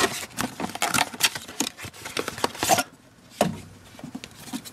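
Handling noise as a cardboard sunglasses box is opened and a hard clamshell case is slid out of it: a quick run of light scrapes, taps and rustles that eases off about three seconds in, then a few more scattered clicks.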